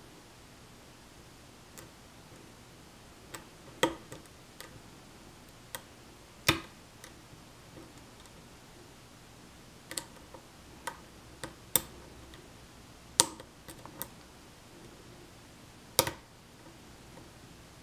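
Single-pin picking of a challenge lock cylinder: sharp metallic clicks at irregular intervals, about a dozen in all, as the pick lifts the pins. The pins are heavily serrated, so many clicks are serrations catching at the shear line.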